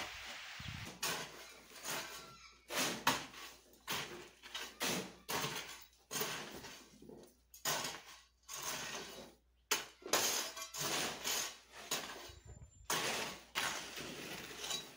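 Metal shovels scraping and scooping loose earth, in repeated short strokes about a second apart with brief pauses: earth fill being spread to level a house floor.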